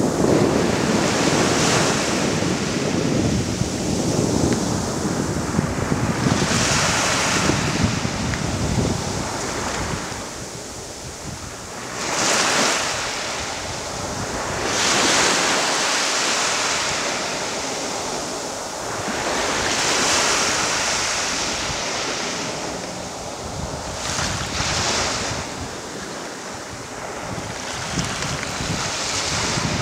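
Small waves washing up onto a sandy beach, their hiss swelling every few seconds as each wave breaks and runs up the sand. Wind rumbles on the microphone, strongest in the first third and again near the end.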